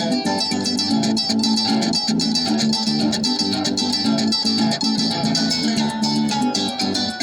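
A harp played in a fast run of plucked notes over a steady repeated bass line.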